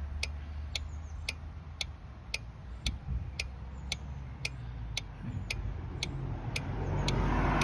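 Automotive plug-in relay clicking on and off in a relay tester, sharp even clicks about two a second over a low background hum. The steady clicking shows the cooling-fan relay is switching properly.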